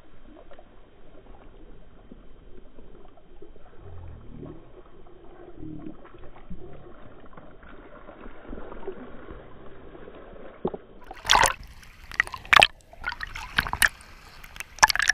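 Sea water sloshing and gurgling around a camera held half-submerged at the surface beside a boat's hull. Dull and muffled at first, then about eleven seconds in, sharp splashes as waves break over the camera, several times.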